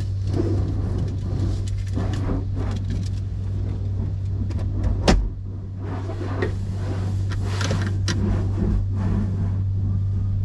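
Automatic car wash heard from inside the car: water spraying and spattering against the windshield and body over a steady low hum, with one sharp knock about five seconds in.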